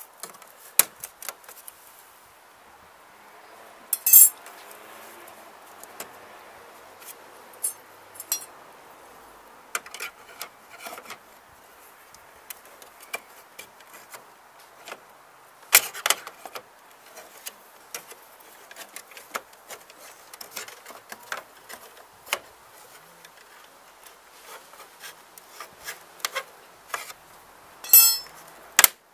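Plastic clips of a 2010 BMW 320d's kidney grille being pried up with a folded stainless steel strip: scattered small clicks, taps and scrapes of plastic and metal. A few louder sharp snaps come about four seconds in, near the middle and just before the end, as the clips release.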